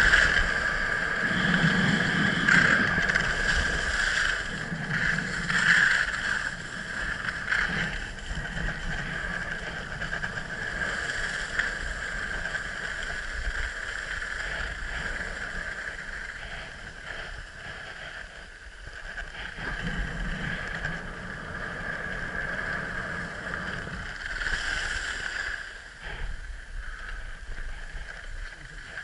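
Skis sliding and scraping over packed snow on a downhill run, with wind on the microphone. It is louder in the first several seconds and settles lower after that.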